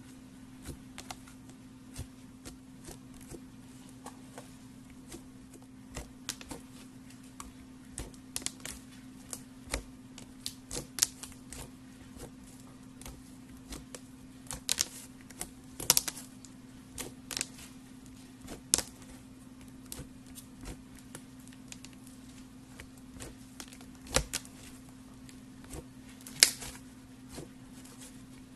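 Thick yellow slime squished, stretched and folded by hand, giving off many irregular sharp clicks and pops from trapped air, with a few louder pops. A steady low hum runs underneath.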